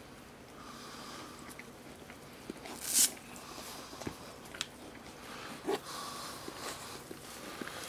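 Mother dog licking and mouthing a newborn puppy to clean it after birth: soft wet clicks and smacks, with a short, louder rush of noise about three seconds in.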